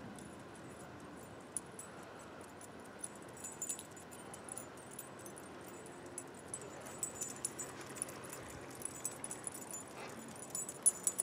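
Faint, irregular metallic jingling and light clinks from a dog's collar tags and leash hardware as the dog trots on a leash beside a slow-moving bicycle, busier in the second half with a few louder clinks near the end.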